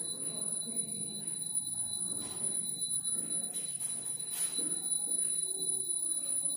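Marker pen writing on a whiteboard: faint scratching strokes, a few sharper squeaks a couple of seconds in and again near the middle. Under it runs a steady high-pitched electrical whine.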